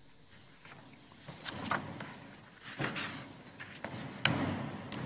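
Soldiers drilling in formation: several sharp, irregularly spaced impacts, stamping boots and slapped rifles, each trailing off with an echo.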